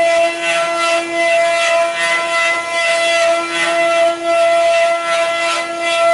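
Multi-spindle 4-axis CNC wood carving machine running: its router spindles whine at a steady pitch while the cutters carve the wooden blanks, with rough cutting noise that swells and fades.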